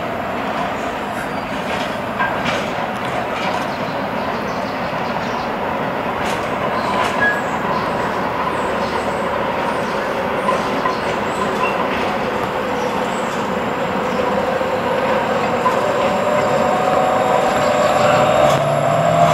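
TriMet MAX light-rail train approaching on curved street track, growing steadily louder. A whine rides over the rumble and rises in pitch and strength near the end as the train draws close.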